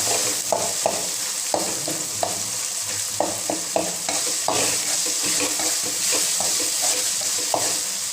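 Tomatoes, onion and ginger-garlic paste sizzling as they sauté in a pan, with a steady frying hiss and a spoon stirring, knocking and scraping against the pan at irregular moments.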